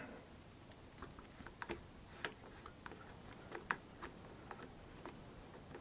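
Faint, irregular light clicks and taps, about ten of them spread unevenly over a few seconds, against a quiet room.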